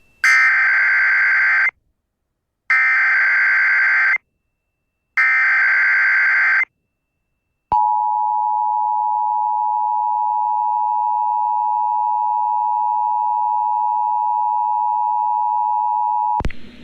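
Emergency Alert System signal: three bursts of SAME header data, a warbling digital screech of about a second and a half each, with short gaps between them. Then, about eight seconds in, the steady two-tone attention signal starts and holds for about nine seconds. Together they mark the start of a relayed tornado warning, here a test.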